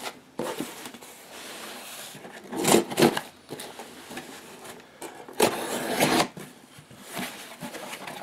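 Cardboard shipping box being opened and handled by hand: rustling and scraping of cardboard, with louder bursts about two and a half seconds and five and a half seconds in.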